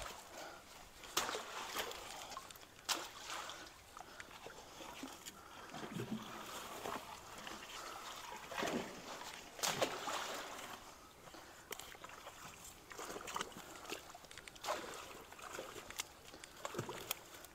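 Creek water sloshing and splashing as a log jam is worked loose at a culvert mouth, with sharp snaps and knocks of sticks and branches being pried and broken. The loudest snaps come about a second in, near three seconds and near ten seconds.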